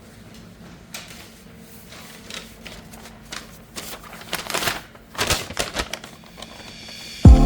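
Light clicks, taps and short scraping strokes of small hand work on a wooden ship model, getting busier toward the end. Loud music cuts in suddenly just before the end.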